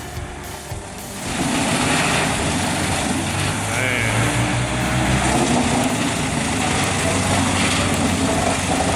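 Heavy machine engine running under load with a loud, dense mechanical noise, which comes in abruptly about a second in after a quieter moment.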